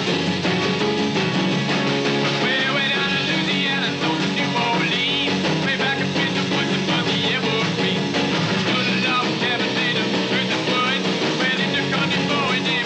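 Rock and roll band playing live: electric guitars, bass and drums driving a steady beat.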